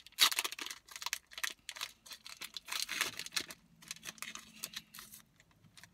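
A Pokémon trading-card pack's wrapper being crinkled and torn open by hand, a stubborn pack that is hard to open. It makes a run of irregular crackling rustles, loudest just after the start.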